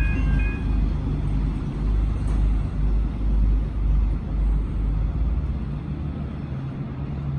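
Level crossing warning bell ringing in short pulses, cutting off within the first second as the crossing clears. After it comes a steady low engine rumble that swells and fades slowly.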